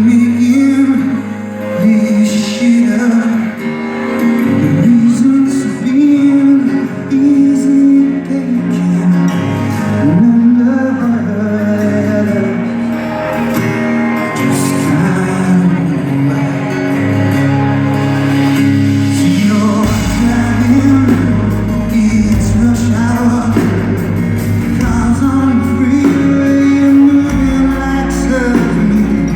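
Live rock band playing a song with a male lead vocal, recorded in the hall. The bass and drums come in heavier about two-thirds of the way through.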